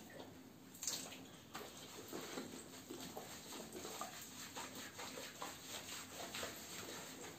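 Small wet sounds of a boxer dog being washed in a tiled shower stall: water dripping and hands rubbing shampoo lather into its wet coat, with one brief louder burst about a second in.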